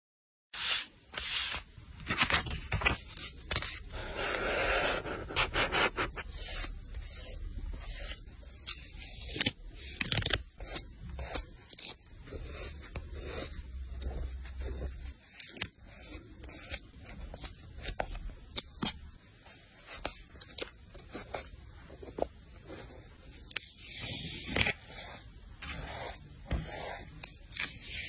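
Close-up paper-crafting sounds of a journal page being laid out: paper and stickers handled, peeled and rubbed, with many short crisp clicks and rustles and a longer tearing rasp a few seconds in.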